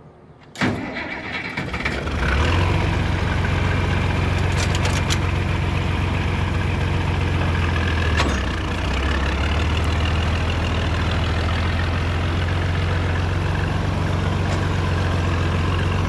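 Tractor engine starting about half a second in, then running up and settling into a steady low idle, with a brief dip in level around eight seconds.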